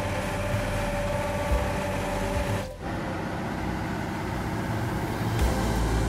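Heavy construction machinery running: a steady engine and rolling-machine noise with a low rumble. It breaks off briefly about three seconds in and gives way to another machine's heavier rumble.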